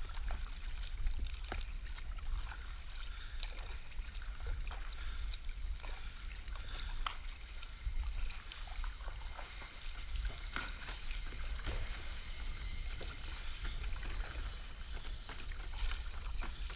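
A kayak being paddled: small splashes and drips of water off the paddle, with scattered light clicks, over a steady low rumble.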